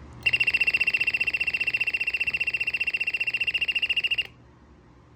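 Royal TS-1000G smoke and gas alarm sounding: a shrill, rapidly pulsing alarm tone that starts a moment in, lasts about four seconds and cuts off suddenly. The detector has been triggered.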